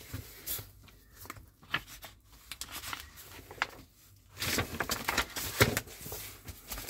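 Light handling noises: scattered soft clicks and taps as small model parts are handled, then from about halfway through a longer rustle of the paper pages of the assembly booklet.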